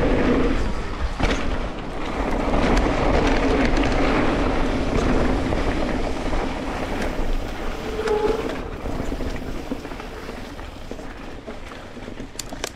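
Wind rushing over the camera microphone and the rumble of an electric mountain bike's tyres on a dirt trail, with a few knocks from bumps. The noise slowly dies down toward the end.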